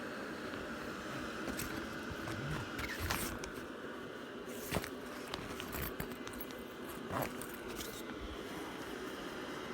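Portable clothes dryer's heater fan running with a steady whir, with a few short clicks and rustles of handling over it, the sharpest about five seconds in.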